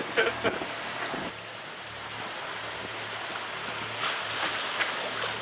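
Sailing yacht under way at sea: an even rush of water along the hull and wind, with a steady low hum underneath.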